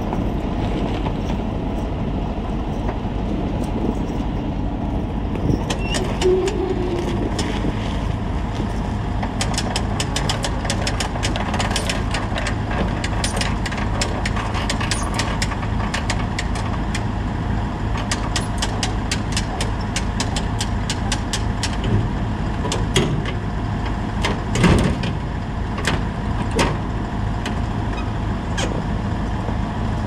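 An engine running steadily at an even speed. From about ten seconds in, many sharp clanks and knocks sound over it, with a few louder thumps near the end.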